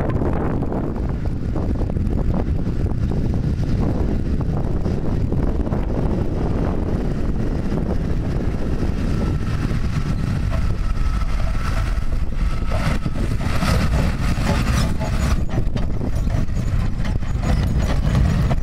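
Fendt 926 tractor running steadily as it pulls a Bergmann manure spreader across the field. A thin whine joins the steady engine noise about halfway through.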